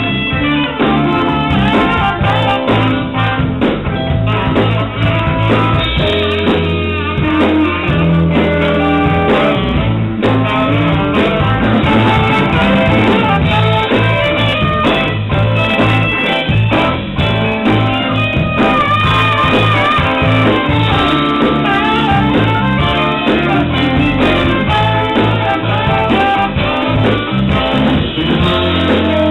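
A blues band playing live: saxophone, electric guitars, bass guitar and drums.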